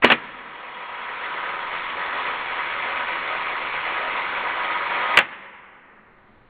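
Mamiya RB67 shutter firing a 1-second exposure with the mirror locked up, played back at one-fifth speed: a sharp click as the shutter opens, a steady whirring with a humming tone that builds slightly while it stays open, and a second sharp click about five seconds in as it closes.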